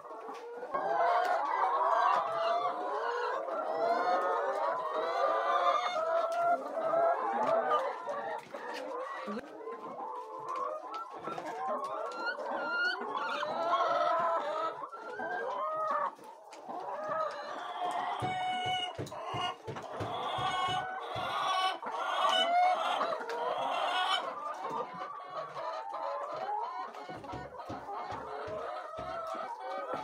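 A flock of brown laying hens clucking continuously, many overlapping calls at once.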